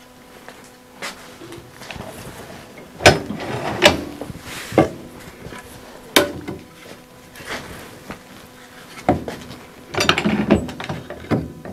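Scattered wooden knocks and clunks as a long wooden sailboat toe rail section is picked up and handled against a workbench, with a quick cluster of knocks near the end.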